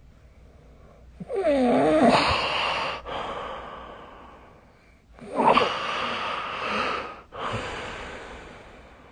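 A person snoring in sleep: two loud snores, about a second in and about five seconds in, each starting with a wavering tone and trailing off into fading breathy noise.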